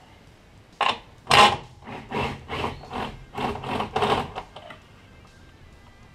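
Cordless power tool run in a quick series of short bursts, spinning off the 12 mm nuts on the rear strut's top mount. There are about nine bursts, starting about a second in.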